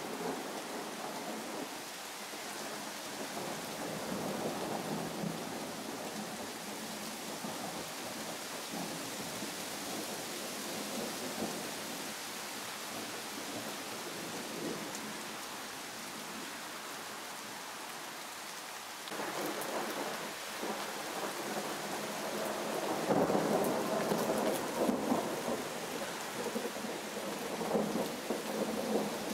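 Steady rain falling during a thunderstorm, with rolls of thunder rumbling: a softer roll a few seconds in and a louder, longer one in the last third.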